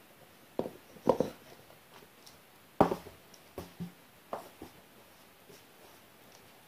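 A series of short knocks and thumps from a sneaker being handled and set down on a wooden floor, the loudest a little under three seconds in; the last ones die away about five seconds in.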